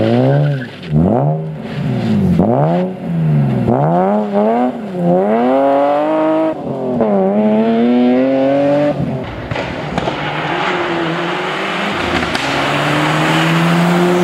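Rally car engine revved hard on a gravel stage, its pitch climbing and dropping sharply about half a dozen times as it slides through a corner and shifts gear. After about nine seconds a gravel-and-tyre hiss takes over, with a faint engine note slowly rising as another car approaches.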